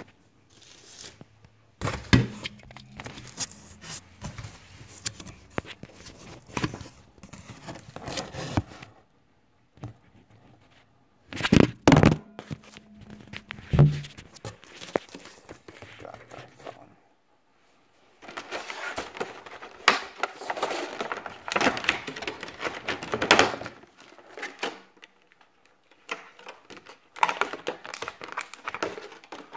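Clear plastic clamshell packaging and plastic wrap being handled and pulled open: crinkling and rustling with thunks, in irregular bursts separated by short pauses.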